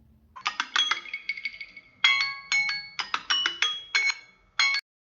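Melodic alarm tone ringing: quick phrases of chiming notes at several pitches, cutting off suddenly near the end.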